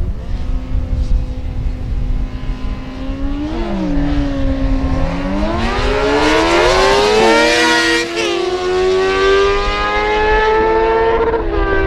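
Drag-racing motorcycles accelerating hard down the strip, the engine pitch climbing steadily and dropping back at each upshift, about three gear changes.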